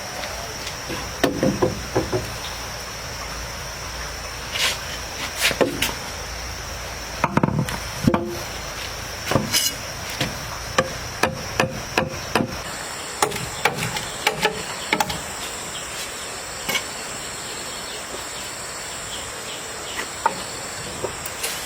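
Irregular sharp knocks and strikes, some close together in pairs or clusters, over a steady high-pitched insect drone that shifts higher a little past the middle.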